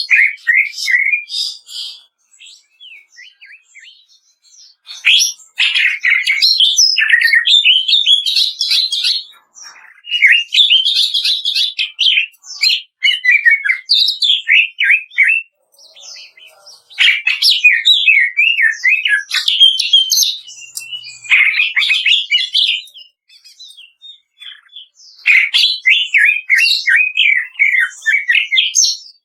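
Greater green leafbird (cucak ijo) singing in loud bursts of rapid, crackling notes (kretekan): about five phrases of a few seconds each, with short pauses between them.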